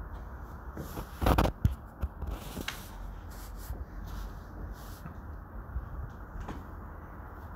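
A short rustling burst and a sharp knock about a second and a half in, another knock a second later and a few fainter clicks, over a low steady rumble.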